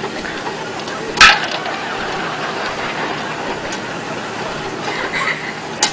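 Popcorn kernels beginning to pop in hot oil in a clear-domed popcorn popper: one loud, sharp pop about a second in and another near the end, over a steady sizzle.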